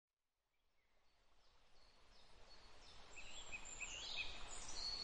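Faint outdoor nature ambience fading in from silence: a soft steady hiss with a run of short bird chirps from about three seconds in and a few higher, thinner calls near the end.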